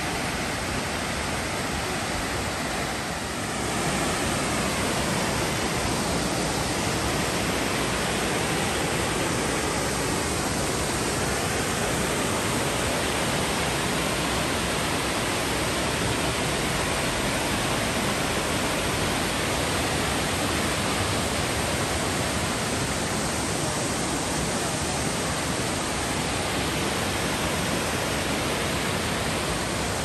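Steady rushing of a waterfall cascading over stepped rock ledges into a pool, an even roar of falling water with a brief slight dip about three seconds in.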